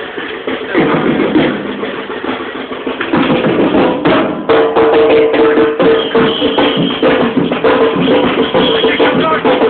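Batucada percussion music: a steady rhythm of drums and wood-block-like hits, growing louder about three seconds in and again near halfway, when a held tone joins it.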